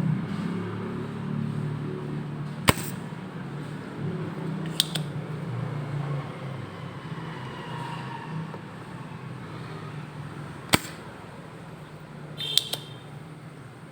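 A few sharp, separate clicks, the last one doubled, over a low rumble that slowly fades away.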